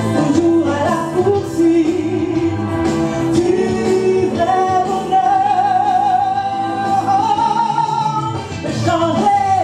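Woman singing a gospel song solo into a handheld microphone over instrumental accompaniment, holding one long note with vibrato through the middle.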